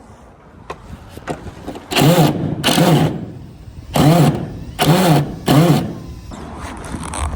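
A motor revved up and back down in five short bursts, two about two seconds in and three more a little later, over steady background noise.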